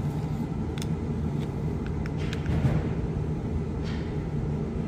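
Small gasoline engine of a Hanil power carrier running steadily with an even low hum, just after its gummed-up carburetor was cleaned.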